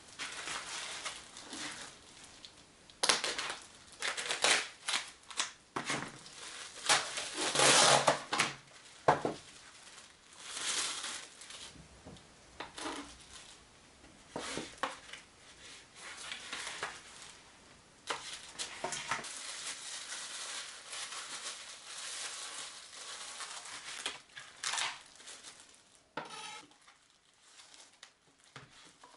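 Cling film crinkling and polystyrene meat trays rustling and knocking on a plastic cutting board as raw meat is unwrapped by hand, in irregular bursts with sharp taps, busiest in the first third.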